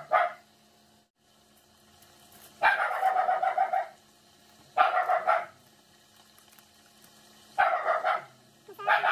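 A dog barking in three bouts: a longer run of barks a few seconds in, then two shorter ones about two and three seconds later.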